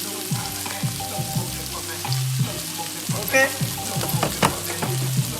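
Food frying in a hot pan, a steady sizzle, with background music with a regular beat playing over it.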